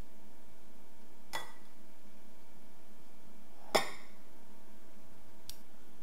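Metal tongs clinking against ceramic bowls: three separate clinks, the middle one, a little before four seconds in, the loudest.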